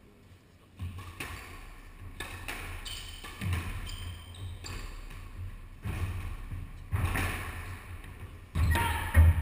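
Squash rally: rackets striking the ball and the ball hitting the court walls, about seven sharp hits at uneven intervals, the loudest near the end.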